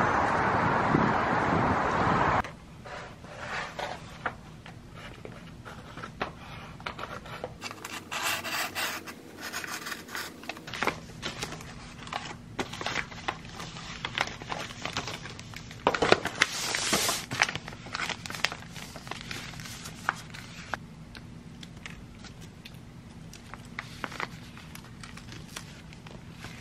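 Wind on the microphone and traffic noise for the first couple of seconds. Then gift-wrapping paper rustling and crinkling as a box is wrapped by hand, with many small taps and clicks and louder bursts of rustling about eight and sixteen seconds in.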